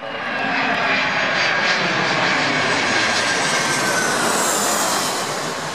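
Twin-engine jet airliner passing low overhead on approach: a loud, steady jet engine roar with fan whine on top. About four seconds in, the whine falls in pitch as the aircraft goes past.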